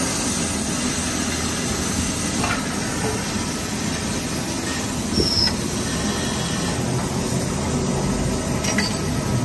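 Tannoban hydraulic bearing-ring lathe running through its automatic cycle: a steady mechanical noise, with a few short clicks and a brief high squeak about five seconds in.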